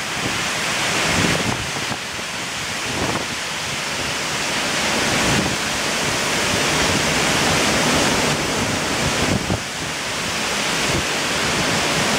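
Storm wind gusting hard through birch and other leafy trees, a loud, fairly steady rush of thrashing leaves and branches, with wind buffeting the microphone.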